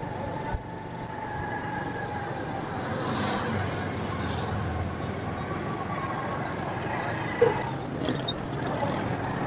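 Steady engine and road noise from a motorcycle riding through city traffic, with other motorbikes running close by.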